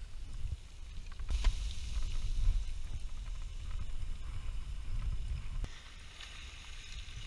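Wind rumbling and buffeting on the microphone, with boots crunching on loose scree and gravel and a sharper crunch about a second and a half in.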